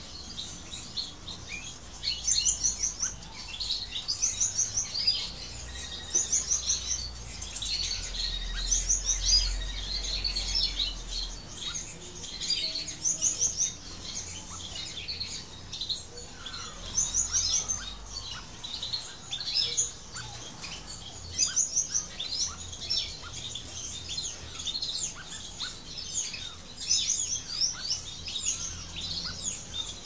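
Small aviary finches chirping and twittering, with short, rapid high trills repeating every second or two.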